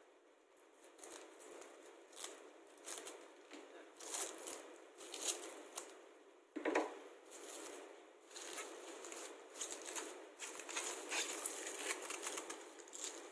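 Plastic cling film being pulled off the roll, torn and pressed over a dish, crackling and rustling unevenly, with a single knock about halfway through.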